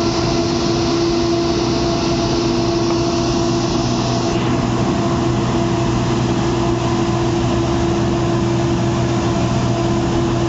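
Heavy construction-machine engine running steadily: a constant droning hum under a hiss, which thins out about four seconds in.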